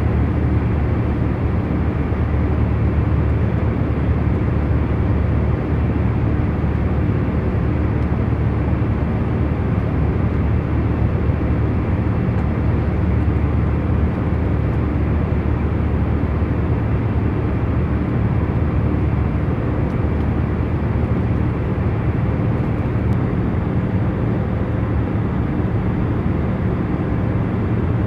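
Jet airliner cabin during cruise: a steady, even rumble of engine and air noise, strongest in the low end, with a faint steady hum and no changes.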